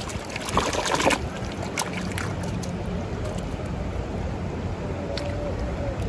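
Steady rush of a swollen mountain creek, with wind on the microphone, and a cluster of clicks and knocks about a second in.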